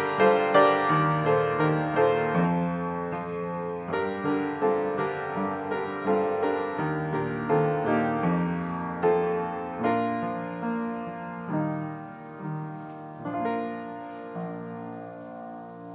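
Piano playing a slow offertory piece in sustained chords, growing gradually quieter toward the end.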